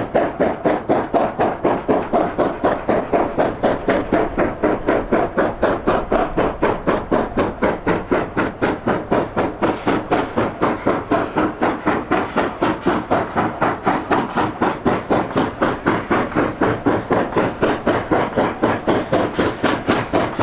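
China Railways JS class 2-8-2 steam locomotive working hard with a train, its exhaust chuffing in a fast, even rhythm that holds steady throughout.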